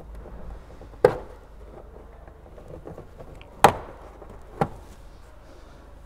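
Three sharp clicks and snaps, the loudest a little past halfway, as a small plastic trim clip in a Toyota GR Yaris front wheel-arch liner is worked loose and popped out.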